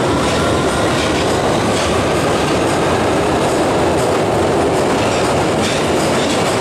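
London Underground Victoria line 2009 Tube Stock train pulling out of a deep-level platform, its wheels and running gear making a loud, steady rumble with irregular clicks over the rail joints. A faint rising motor whine dies away right at the start.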